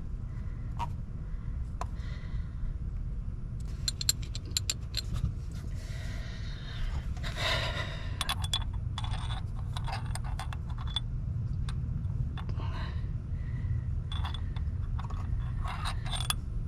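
Light metallic clicks and clinks, with one longer scrape about seven seconds in, as the oil filter housing adapter and its bolts are handled and fitted back in place by hand. A steady low rumble sits underneath.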